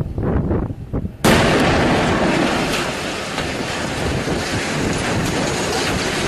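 Barrel bomb explosion: a sudden loud blast about a second in, followed by a continuing heavy rumble.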